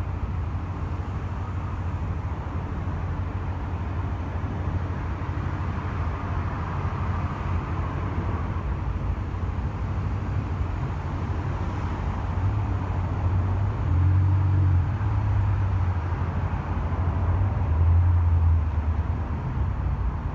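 Continuous traffic noise from a busy multi-lane city expressway: a steady low rumble of engines and tyre hiss from passing cars. It swells louder twice, about two-thirds of the way through and again near the end.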